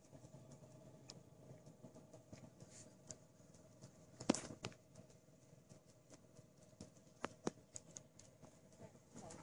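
Faint scattered clicks and light rustling, with one sharper click about four seconds in and two more a little past seven seconds.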